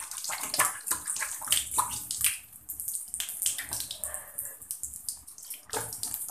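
Irregular rustling and scuffing of clothing and movement close to the microphone, crackly and hissy.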